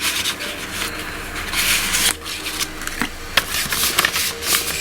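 Paper rustling and crinkling as an envelope is opened and its contents handled, with a few sharp clicks.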